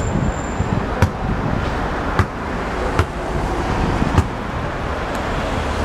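Steady road-traffic noise with wind on the microphone, broken by four short sharp knocks about a second apart.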